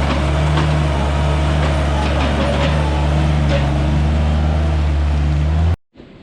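A machine running with a loud, steady, low engine-like drone and some clattering knocks over it; it cuts off abruptly near the end, leaving only a faint rushing noise.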